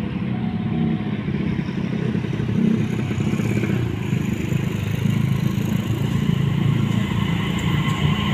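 Diesel-electric locomotive hauling a train of fuel tank wagons as it approaches: a steady low engine rumble.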